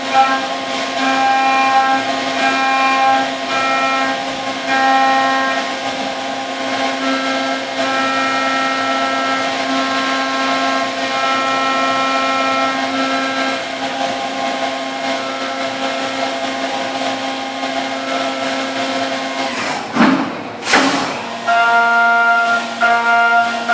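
Brother TC-S2Dn-O machining center's spindle and carbide endmill milling 6061 aluminum under flood coolant: a steady high-speed spindle whine with cutting tones that come and go as the tool moves in and out of the cut. About twenty seconds in, a short whoosh breaks the cutting and the tones settle at a different pitch.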